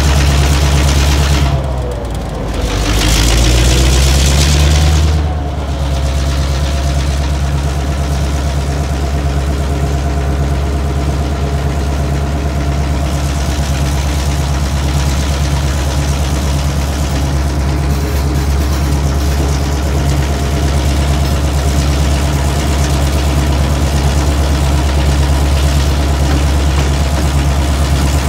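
EMD diesel-electric locomotive engine running loudly as the freight train pulls away. About two seconds in its pitch wavers while a loud hiss sounds for about two seconds, then the engine holds a steady note.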